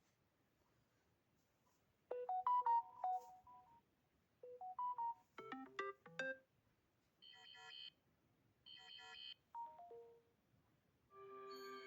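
Samsung Galaxy A52 notification tones played one after another. About two seconds of near silence come first, then a string of short melodic chimes and quick note runs, two of them the same bright chime played twice. A held chord starts near the end.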